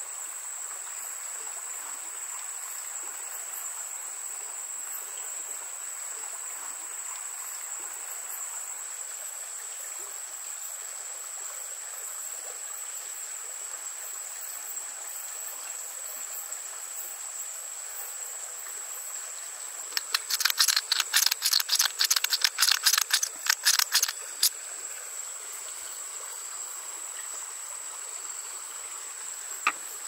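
Steady high insect trill over a faint hiss like running water. About twenty seconds in come some four seconds of rapid dry clicking and crackling, a one-hand push-button spice mill grinding.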